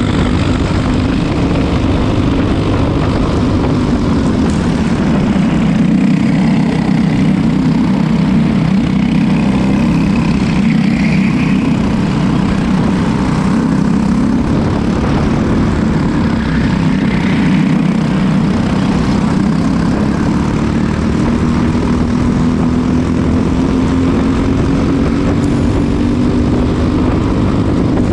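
Racing go-kart engine running hard at race pace, heard from on board, its pitch dipping and rising through the corners and climbing steadily as it accelerates near the end.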